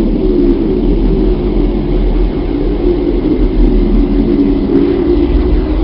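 Spacecraft radio-emission recording converted to audio and presented as the sound of Earth: a steady, dense, low drone like a distant aircraft.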